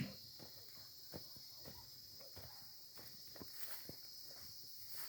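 Faint footsteps walking on the ground, about two steps a second, over steady insect chirring.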